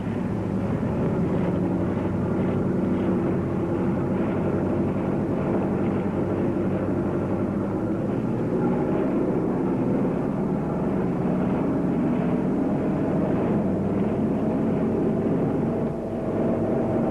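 A motor yacht's engine running steadily under way, a constant drone with water rushing past the hull. The sound dips briefly near the end.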